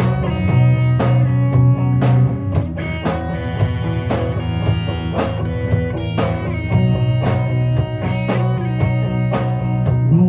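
Band music with no vocals: guitar chords over a bass line and a drum kit, with a strong drum hit about once a second.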